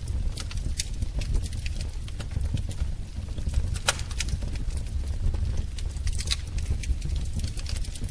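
Wood fire in a fireplace crackling, with irregular sharp pops over a steady low rumble of the flames; one louder pop about four seconds in.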